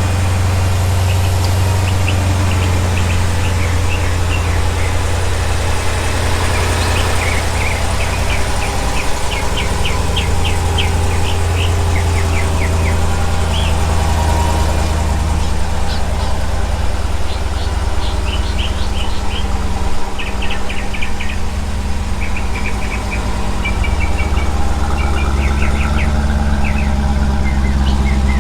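A vehicle engine idling steadily, a loud low hum, while small birds chirp repeatedly throughout.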